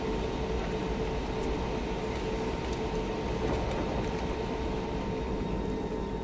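Steady airliner cabin noise: low engine rumble and air-conditioning hiss with a faint steady hum, the plane running just before its takeoff.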